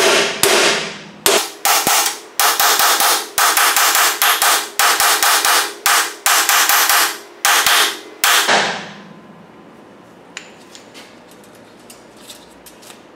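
Hammer striking a bearing race driver to drive a new rear wheel bearing into a Crown Victoria's axle housing: a steady run of sharp metallic blows with a short ring, about two a second, stopping about eight and a half seconds in.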